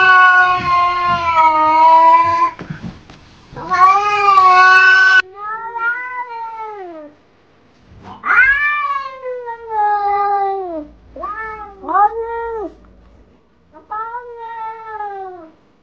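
Domestic cats yowling and meowing: a long drawn-out yowl, then a string of separate meows that rise and fall in pitch, two short ones in quick succession among them.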